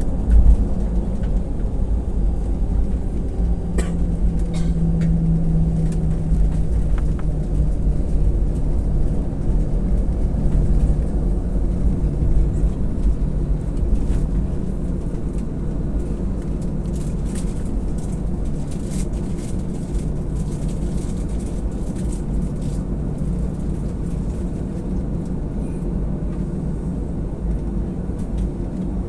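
Airliner cabin during the takeoff run: the engines at high power and the wheels on the runway make a steady low rumble with a droning tone, and short rattles come from the cabin fittings.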